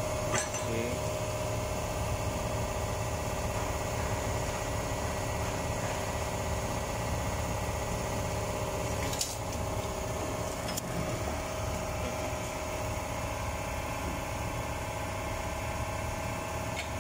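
Steady drone of running engine-room machinery, a constant hum with a low rumble beneath it. A few short sharp clicks sound over it, one near the start and two about nine and eleven seconds in.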